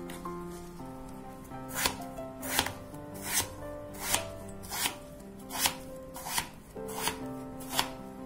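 Kitchen knife slicing through a raw peeled potato and striking a wooden cutting board, a steady series of sharp cuts about one every 0.7 seconds, starting about two seconds in, as the potato is cut into French-fry sticks. Soft background music runs underneath.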